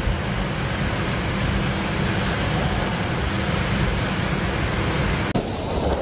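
Hurricane wind and heavy rain: a steady rushing noise with deep low buffeting of the wind on the microphone. About five seconds in it switches abruptly to another recording of the same kind of storm noise.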